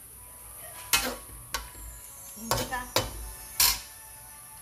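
Metal ladle stirring chunks of beef and tripe in a metal wok, knocking against the pan about five times.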